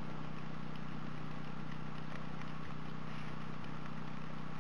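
A steady low mechanical hum, with a few faint crunching ticks as an ice screw is twisted by hand into a hole in lake ice.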